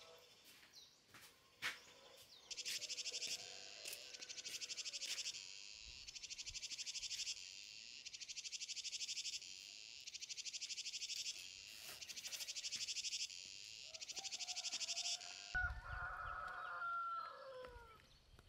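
Cicadas singing: a high, rapidly pulsing buzz in phrases of about two seconds, each swelling in loudness, repeated six times and stopping suddenly near the end. As it stops, a rooster crows once, its call falling away at the end.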